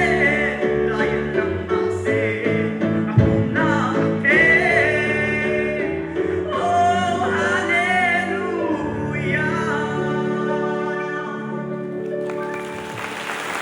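A solo voice singing a slow song over sustained keyboard chords, the last phrase held out. Applause breaks out near the end.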